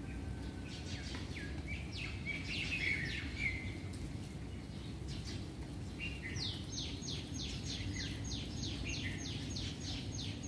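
Birds calling: scattered chirps and short whistles, then from about six seconds in a fast run of sharp descending notes, about three a second. Underneath is a steady low background rumble.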